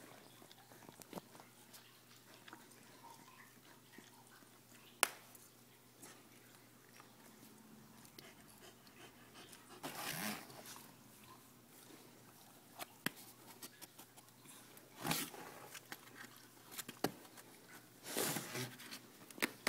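Faint sounds from a whelping dog: scattered clicks and rustles, with a few short noisy bursts about halfway through and again near the end.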